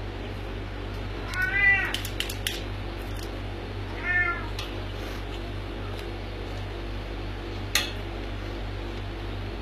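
Kitten mewing twice, two short high-pitched mews that rise and fall, about two and a half seconds apart. A few light clicks and a steady low hum run underneath.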